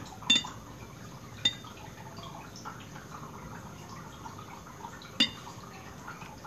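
Glassware clinking sharply three times, with faint drips and trickling of liquid, as a little distilled water is poured off into a glass.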